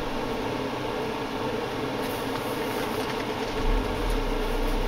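Steady mechanical hum with a constant drone, joined by a deeper low rumble about three and a half seconds in.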